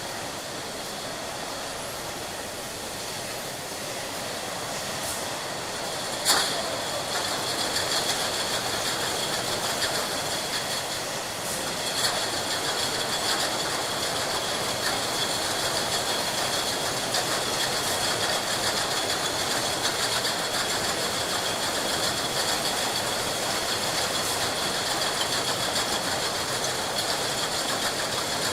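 Glass bottle production line running: steady machinery noise with a constant high whine and scattered sharp clinks of glass bottles. The loudest clink comes about six seconds in.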